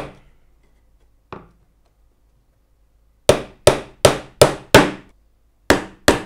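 Hammer driving small one-inch round-head nails through a wooden lat into a cedar beehive roof frame. One strike at the start and a light tap about a second in, then after a pause a run of five quick blows, and two more near the end.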